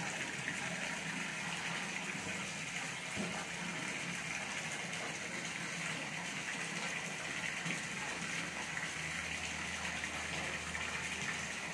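Steady gush of running water, even and unbroken, with a faint low hum joining in about three-quarters of the way through.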